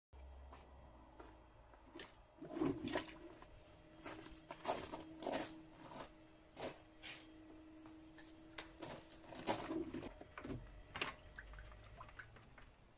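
Scattered knocks, clatters and scrapes of plastic garden pots and a plastic wicker-style hamper being picked up, moved and set down, over a faint steady hum.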